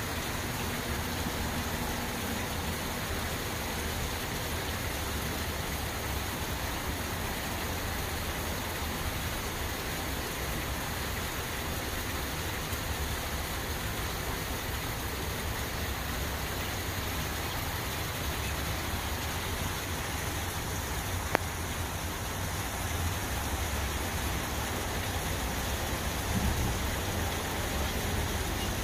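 Steady rush of water at a river dam: an even, unbroken hiss with a low rumble beneath it. One sharp click stands out about two-thirds of the way through.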